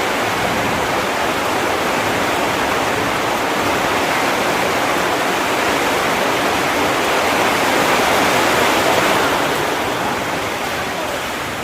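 Heavy rain pouring down in a steady, dense hiss that swells slightly a little past the middle, then eases.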